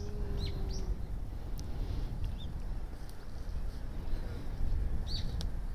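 Small birds chirping: a few short, quick downward chirps near the start and another about five seconds in, over a steady low rumble.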